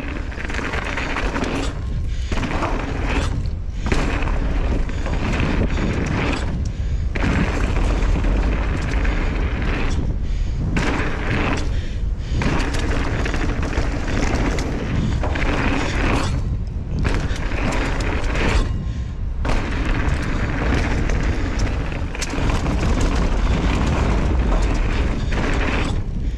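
Mountain bike descending a downhill trail at speed: tyres running over dirt and the bike rattling, with heavy wind rumble on the camera's microphone. The higher noise drops out briefly about seven times.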